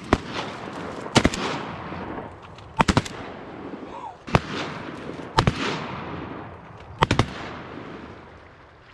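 A volley of shotgun fire from several duck hunters shooting at incoming mallards: about ten shots, mostly in quick pairs, spread over some seven seconds. Each report trails off in a fading echo.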